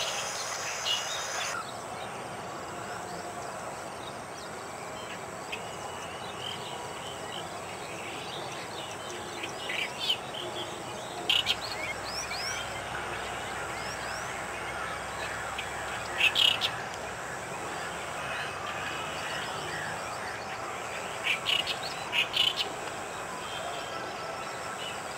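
Outdoor wetland ambience: a high insect chorus cuts off about a second and a half in, then a steady background hiss with short clusters of bird chirps now and then, loudest around the middle and near the end.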